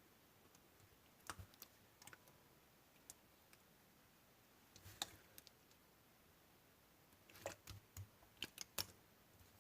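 Slime being pressed and played with by hand, giving faint scattered clicks and pops, with a quick run of them near the end.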